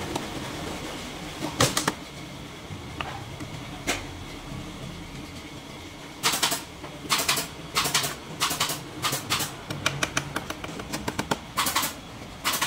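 Irregular short knocks and scraping strokes of hand work on bamboo: two single strokes, then from about six seconds in a busier run, some in quick clusters.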